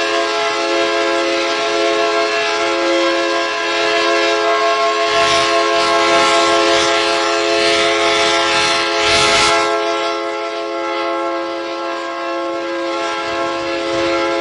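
Loud alarm horn sounding one continuous chord of several fixed pitches that neither rises nor falls. A rushing noise swells underneath from about five seconds in and cuts off just before ten seconds.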